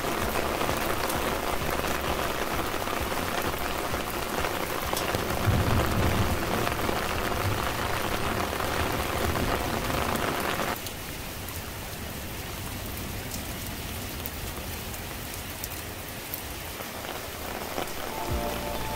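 Steady rain falling on garden plants and wet surfaces, with scattered drop ticks. About eleven seconds in it suddenly drops to a quieter, duller patter, and soft background music comes in near the end.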